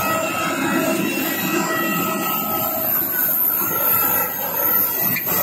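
Jet aircraft turbine running steadily: a rushing noise with several high, steady whining tones over it, and one knock near the end.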